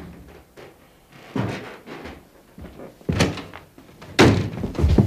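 Door thuds indoors: three sharp bangs spread over a few seconds, the last the loudest.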